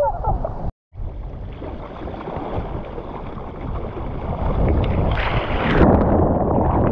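Shore-break surf washing over and around a waterproof action camera at water level: churning, rushing water with wind buffeting the microphone. The sound cuts out completely for a moment under a second in, then builds to a louder, brighter rush of whitewater about five seconds in as foam breaks over the lens.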